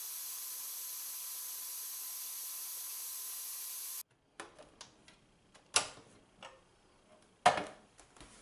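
Countertop food processor running steadily as it blends chopped peppers, with a steady whine. It cuts off about four seconds in. Then come light plastic clicks and two sharp knocks as the processor's lid is taken off and set down.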